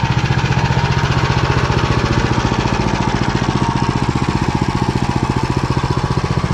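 Walk-behind tractor (motoblock) engine running steadily under way, with an even, rapid pulse.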